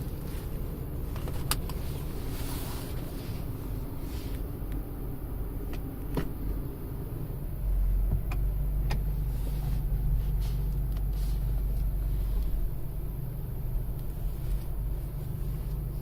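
Engine and road rumble heard from inside the cab of a 2013 Toyota Tacoma pickup on the move, getting louder and deeper about eight seconds in. A few light clicks or knocks come through now and then.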